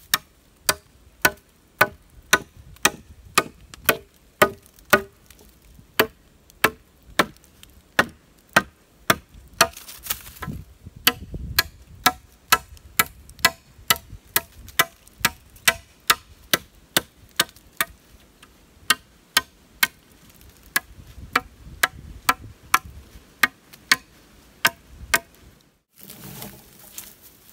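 Machete chopping a branch laid across a fallen log: sharp blows at a steady pace of about two a second. Near the end the chopping stops and there is a short rustle.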